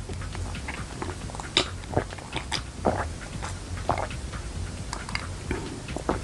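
Close-miked chewing and mouth sounds of someone eating street food: irregular wet smacks and clicks over a steady low hum.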